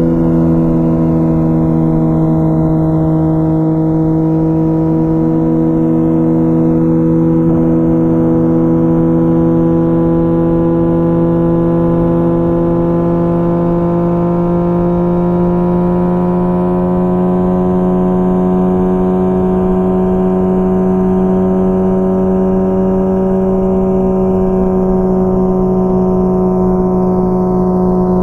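2004 Honda CBR1000RR Fireblade's inline-four engine through a Jardine titanium exhaust, cruising with a steady note. The pitch creeps slightly upward partway through as the revs rise, then holds.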